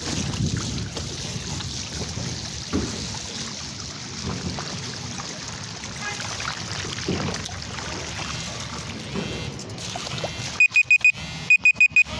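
Steady outdoor rushing noise with a few faint knocks, then, about ten and a half seconds in, loud high electronic beeps in quick bursts of about four, repeating.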